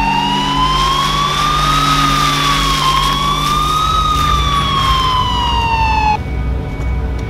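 Police car siren wailing, its pitch slowly rising and falling, then cutting off suddenly about six seconds in.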